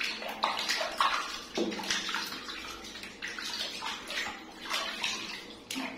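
Water splashing in a small plastic baby bathtub as a person's hands rub and rinse a wet monkey while a second monkey swims: a run of irregular splashes.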